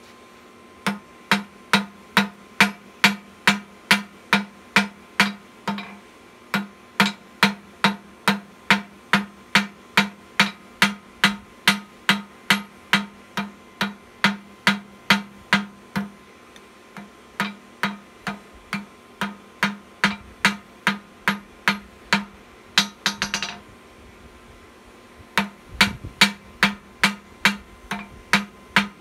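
Hand hammer striking hot steel on an anvil in a steady rhythm of about two blows a second, each blow leaving a short metallic ring. The smith is drawing out a small round bar to a thinner rod. There are a few brief pauses between runs of blows.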